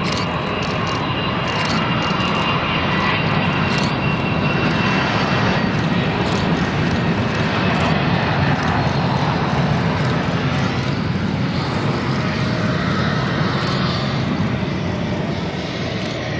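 McDonnell Douglas MD-80-series jet airliner taxiing, its rear-mounted Pratt & Whitney JT8D turbofans running at low power with a steady rumble and a faint whine. It grows louder toward the middle and eases off near the end.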